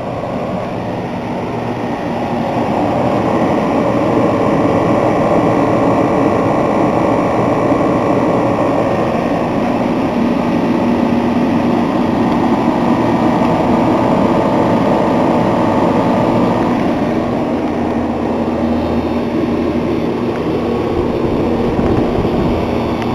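Commercial refrigeration condensing units running: a steady compressor hum mixed with the rush of condenser fans. It grows louder over the first few seconds, and from about two-thirds of the way in it turns toward a deeper rumble.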